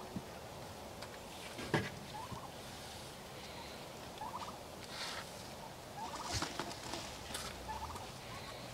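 Turkeys gobbling in several short rattling bursts, over the scrape and knock of a long-handled tool working the dirt floor of the run; a sharp knock about two seconds in is the loudest sound.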